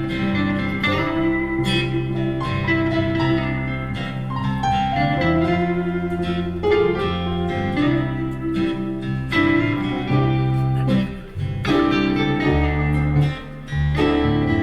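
Instrumental break of a gospel song: acoustic guitar picking a melody over a steady bass line, with no singing.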